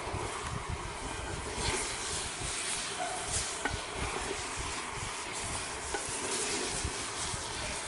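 A wooden spatula stirring chicken pieces in a clay handi, scraping against the pot, over a steady frying sizzle as the chicken browns on low heat. A few small ticks stand out, about three and a half and six seconds in.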